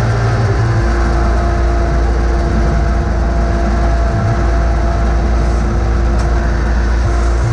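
John Deere X585 garden tractor's engine running steadily while the tractor pushes snow with its front plow blade.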